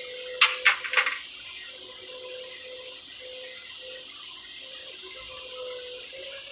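Three sharp knocks in the first second, then the steady frying hiss of a stick-welding (SMAW) arc laying a weld pass.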